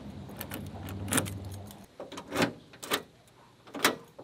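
Sharp metallic clicks and clinks, several of them about a second apart and loudest in the second half, from the new door handle and latch hardware of a 1998 Toyota Tacoma door being worked by hand. A low steady hum underneath stops about two seconds in.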